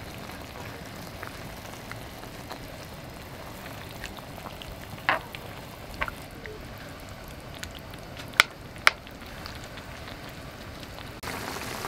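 A pot of stew bubbling steadily with a continuous sizzling hiss, with a few sharp clicks scattered through it, loudest about five and eight and a half seconds in.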